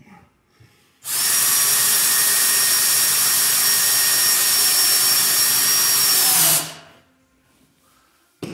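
Power drill running at a steady speed for about five and a half seconds with a constant high whine, boring a screw hole through an RV skylight's plastic flange, then spinning down.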